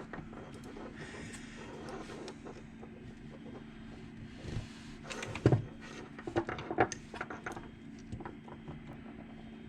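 Small clicks, scrapes and knocks of a stiff wire or pick being worked into the release hole of a car hatch lock casing, trying to press the hidden tab that frees the lock cylinder; a cluster of sharper knocks comes about halfway through.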